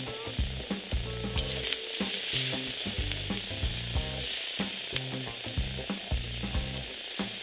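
Eel and chillies sizzling in a hot steel wok, with a metal spatula repeatedly scraping and knocking against the pan as the stir-fry is tossed.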